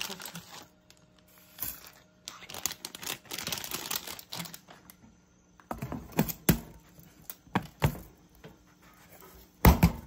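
Dry spaghetti and its plastic storage canister being handled: the strands rustle and clatter for the first few seconds. Then come several sharp knocks and taps against the canister, the loudest near the end.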